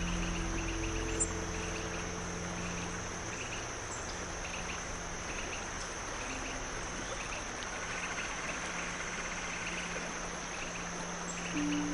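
Crickets chirping in short pulsed bursts, about one and a half a second, over a steady high insect whine and an even background hiss of flowing water. A low steady hum runs underneath.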